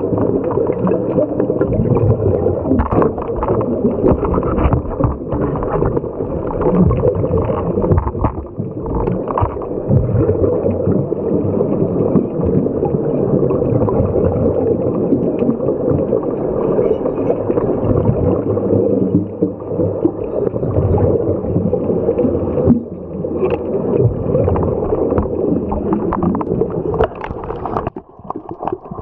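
Muffled underwater rumbling and gurgling of scuba divers' exhaled regulator bubbles, heard through an underwater camera housing. It drops off abruptly near the end.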